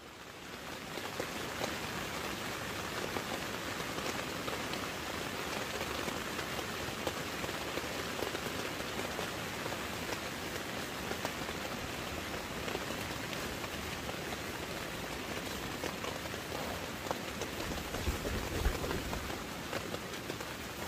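Torrential rain falling steadily on the nylon fabric of a pop-up tent, heard from inside the tent as a dense, even hiss and patter. A few low thumps near the end.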